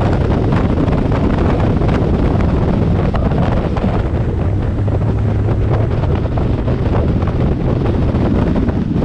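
Heavy wind buffeting on the microphone of a fast-running bass boat, with water rushing along the hull and its Evinrude E-TEC 250 outboard under it, as the boat slows from about 60 to under 40 mph.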